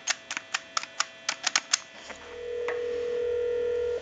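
Western Electric Trimline touch-tone keypad being dialed: a quick run of about eight short beeps. About two seconds in, a steady ringback tone comes through the amplified pickup for about two seconds, the sign that the call has gone through and is ringing at the far end.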